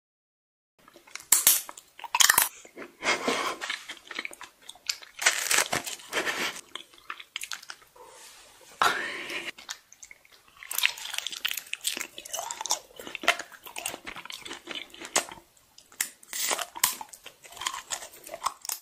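Biting and chewing of raw honeycomb: crackly, sticky crunching in irregular bursts, starting about a second in.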